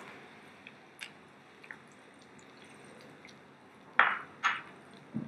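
Wooden spatula stirring vegetables through a thin, watery sauce in a pan: a few faint clicks, then two short wet swishes about four seconds in and a soft knock near the end.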